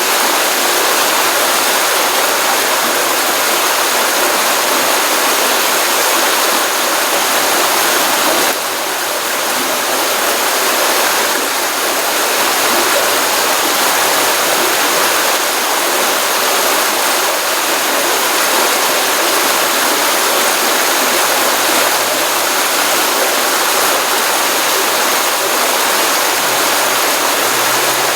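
Pond stream running after a rainstorm: a steady, continuous rush of flowing water, with a slight drop in level about eight and a half seconds in.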